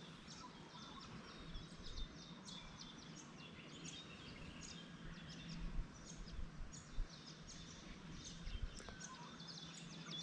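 Birds chirping and calling in many quick, short high notes, over a faint steady low hum, with a few soft bumps near the middle.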